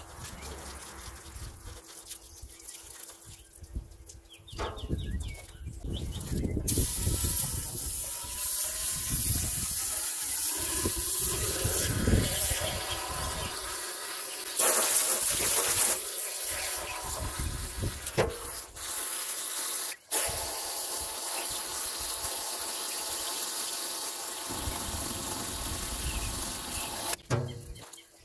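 Garden hose spray nozzle jetting water into a diesel particulate filter and splashing into a stainless steel tote, rinsing out the cleaning chemical and ash. The spraying starts about a quarter of the way in, is loudest about halfway, breaks off for a moment and stops just before the end.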